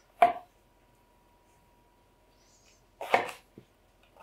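Chef's knife slicing through a king oyster mushroom stem and knocking on a wooden cutting board: two sharp cuts about three seconds apart, with a faint tap after the second.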